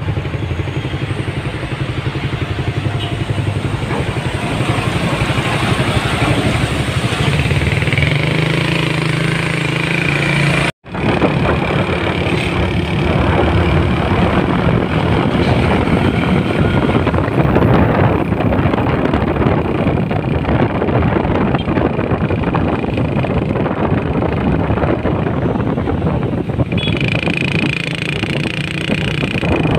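Heavy diesel trucks and street traffic passing close by, a loud, continuous engine rumble with motorbikes in the mix. The sound breaks off for a split second about eleven seconds in.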